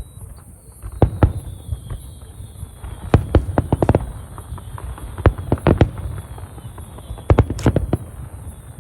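Aerial fireworks bursting: a string of sharp bangs in clusters, with a low rumble between them. A faint high whistle falls slowly in pitch through most of it.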